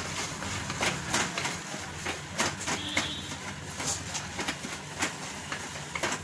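A spatula knocking and scraping irregularly against the inside of a pressure cooker as greens and masala are stirred and sautéed, over a steady sizzle.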